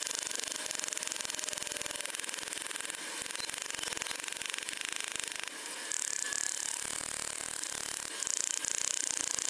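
Steel hammer striking a tightly compacted aluminium-foil ball on a cutting board, heard as a fast, unbroken stream of hard taps.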